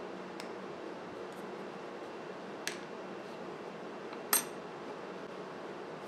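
Small metal pocket-knife parts clicking and clinking as they are handled and set down on a wooden workbench, over a steady low room hum: a few light clicks, the loudest about four seconds in with a brief metallic ring.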